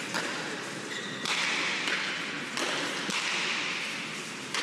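Pelota ball striking the walls of a frontón court: four or five sharp cracks about a second apart. Each is followed by a long echo, over a steady hiss.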